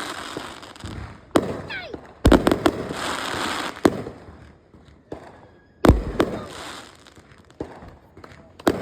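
Fireworks going off: a string of sharp bangs a second or two apart, the loudest booms about two seconds and six seconds in. There is crackling after the first big boom and a short wavering whistle just before it.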